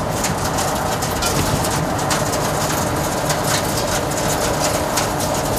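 Loud steady rush of storm wind and rain against a vehicle, with a dense, rapid crackle of drops striking it over a faint low hum from the vehicle.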